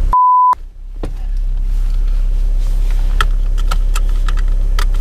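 A loud, steady single-pitch censor bleep for about half a second at the start, with all other sound cut out under it. After it, the Peugeot 306 turbodiesel idles with a steady low rumble, and light clicks and rattles come from about three seconds in as the seat belt is pulled across and buckled.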